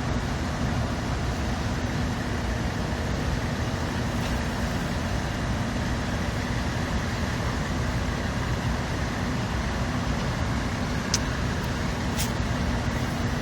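Heavy diesel engines of large mobile cranes running steadily under a lift, a dense low rumble with a faint steady hum. Two short, sharp high sounds come near the end.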